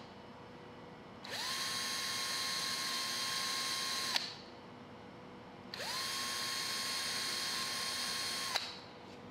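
Power drill with a step drill bit boring holes through the sealant and into the rear of the spacer bar of an insulated glass unit. It makes two runs of about three seconds each, with quiet gaps between. The motor whine rises as it spins up and drops away as it stops.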